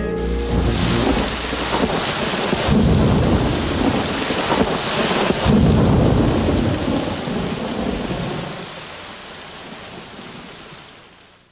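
Heavy rain with rolls of thunder: rumbles swell about a second in, around three seconds and again around five to six seconds, the loudest. Then the storm fades out gradually.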